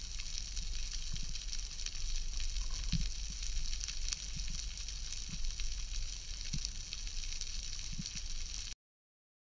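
Underwater ambience heard through an action camera's waterproof housing: a steady crackling hiss with scattered clicks, over a low rumble of water, with a few dull knocks.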